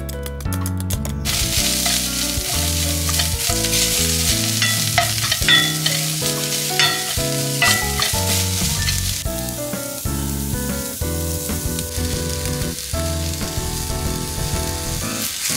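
Julienned carrot strips sizzling in a hot frying pan as they are stir-fried and stirred with a wooden spatula. The sizzle starts about a second in and eases after the halfway point, with spatula scrapes in between. Background music plays throughout.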